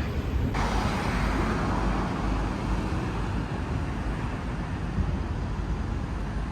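Steady low rumble of road-vehicle noise. A hiss starts suddenly about half a second in and fades over the next couple of seconds.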